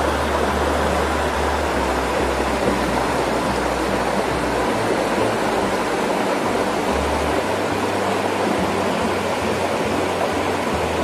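Steady rushing of flowing river water, with the low bass notes of background music underneath.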